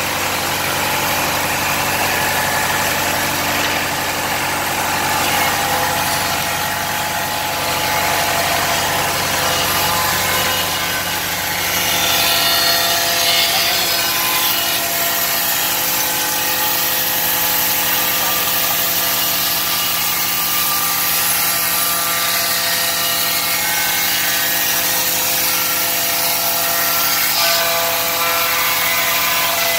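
Horizontal band resaw running, with a steady machine hum carrying several steady tones as a board is fed on its conveyor under the pressure rollers. From about twelve seconds in the sound turns brighter and hissier as the blade cuts through the wood.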